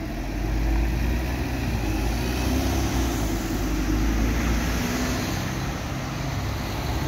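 Ulsterbus single-decker diesel bus driving past, its engine rumbling low. The rumble grows about half a second in and eases after about five seconds as the bus moves away.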